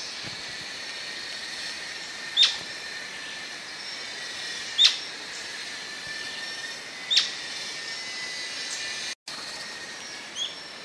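Atlantic royal flycatcher giving short, sharp calls: three loud ones about two and a half seconds apart and a fainter one near the end, over a steady background chorus.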